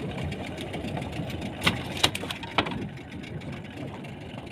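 Small fishing boat's engine idling steadily, with three sharp knocks around the middle.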